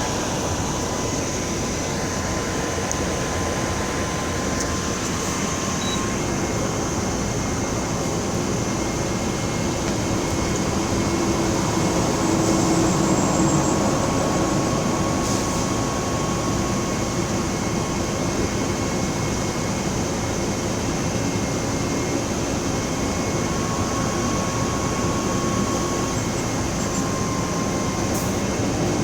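Mercedes-Benz OF 1724L bus's diesel engine running steadily, getting a little louder around the middle.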